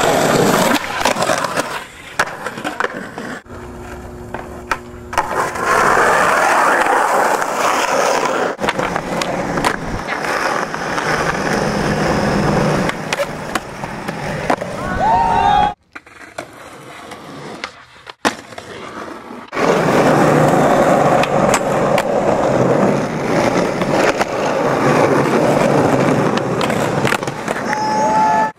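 Skateboard wheels rolling over rough concrete, with sharp clacks as the board pops and lands and long scraping grinds along a concrete ledge. Abrupt cuts between takes.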